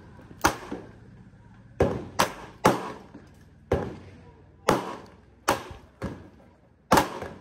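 Gunshots at a shooting range: about nine sharp reports at uneven intervals, from a pistol fired close by and from other shooters' guns down the firing line.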